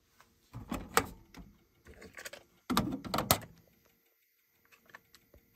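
Cassette deck being unloaded: a run of plastic clicks and clatters as the cassette door is opened and the tape is handled out of the well, loudest about a second in and again around three seconds in, with a few faint ticks near the end.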